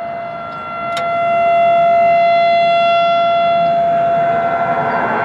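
Federal Signal EOWS 612 electronic warning siren, its drivers fed from a stereo amplifier, sounding a loud steady tone. The tone swells about a second in and steps slightly higher in pitch near the end. A brief click comes about a second in.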